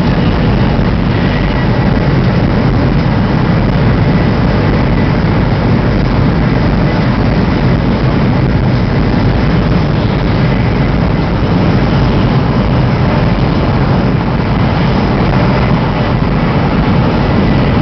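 Steady, unbroken rumble and rush of a Chinese high-speed train running at speed, heard inside the carriage, heaviest in the low range with a faint thin high whine above it.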